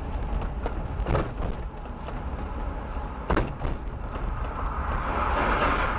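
Car interior road noise: a steady low rumble of the engine and tyres, with two sharp knocks about two seconds apart. A rushing hiss swells near the end.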